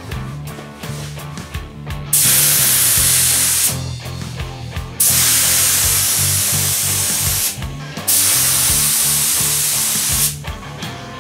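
Cheap gravity-fed air spray gun hissing as it sprays paint onto a car bonnet, in three steady passes of about two seconds each.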